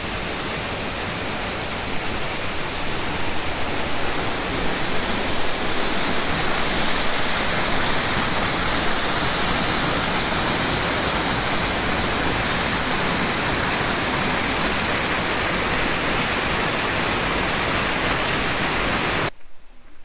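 Waterfall: a steady, loud rush of falling water, a little louder about two seconds in, that cuts off abruptly near the end.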